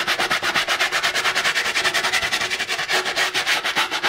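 A stiff-bristled brush scrubs a football boot lathered in foam shoe cleaner, in fast, even back-and-forth strokes of about eight a second.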